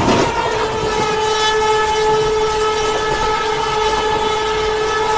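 Indian Railways locomotive horn sounding one long, steady blast over the running noise of the moving train.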